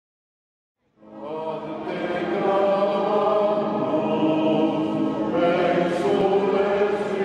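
Choral chant music fading in after about a second of silence, with voices holding long sustained notes.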